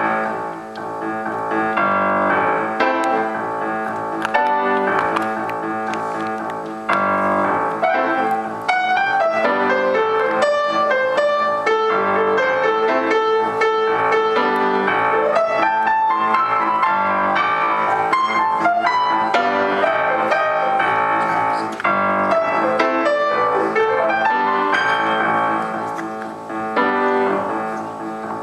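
Grand piano playing a classical-style piece: a dense, flowing texture of many notes at once, with quick runs of repeated notes through most of it.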